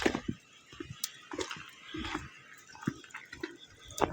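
Footsteps crunching in snow on a trail, a series of short uneven steps.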